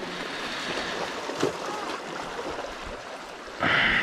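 Steady wash of wind and water noise, with faint far-off voices about a second in. A louder hiss comes in near the end.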